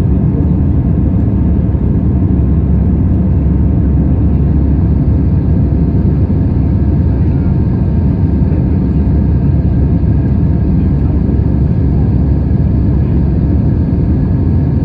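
Steady low rumble of an Airbus A320's engines and airflow heard from inside the passenger cabin, with faint steady whining tones above it.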